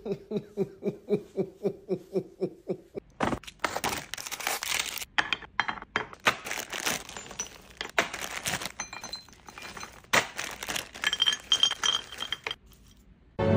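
A voice laughing "ha ha ha" for about three seconds. Then foil-wrapped chocolate candies are poured from a crinkling bag and clink and clatter into white ceramic serving dishes.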